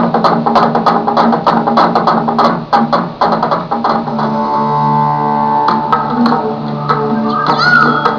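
Music: a fast run of percussive strokes for the first few seconds, then held pitched notes from about halfway.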